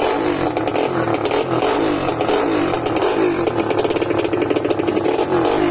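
Honda RS125 motorcycle engine with an upgraded 4-valve head and twin throttle bodies, revved in quick repeated blips, its pitch sweeping up again and again.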